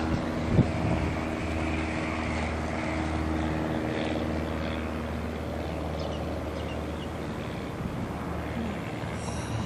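Propeller airplane engine running, its steady pitched hum fading out about halfway through and leaving a low rumble. A sharp knock sounds just after the start.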